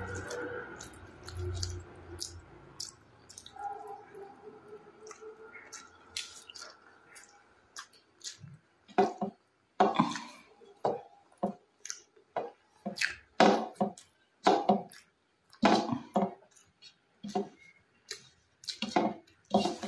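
Close-miked eating sounds of a person chewing rice and curry: wet, irregular smacking and squelching mouth noises, faint at first and coming thick and loud from about eight seconds in.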